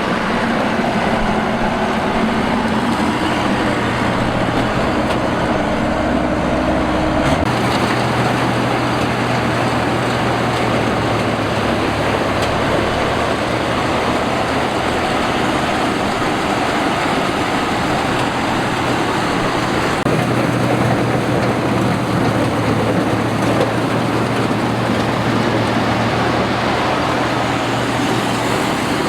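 Rice combine harvester running steadily: the engine hum under the noise of the machinery, with a shift in the engine's note about seven seconds in.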